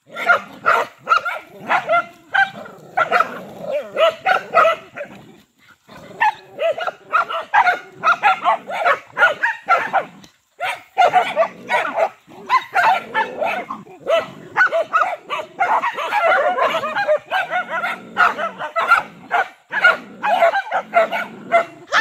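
Several dogs barking rapidly and almost without let-up, the barks overlapping, as they mob and bite at a python they have cornered; the barking breaks off briefly about five and ten seconds in.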